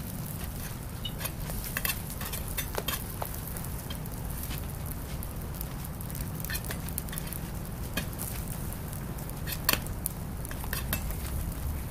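Metal hotteok press and turner clicking and scraping against a flat-top griddle at irregular intervals, the sharpest click a little under ten seconds in. Underneath are a faint sizzle of the pancakes frying in oil and a steady low hum.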